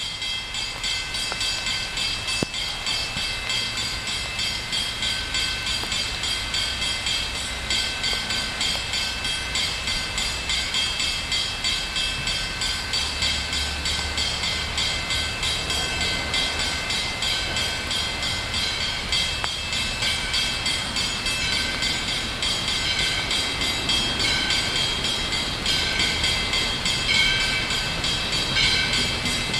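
Grade-crossing warning bell ringing with evenly repeated strikes. An approaching train adds to the sound near the end.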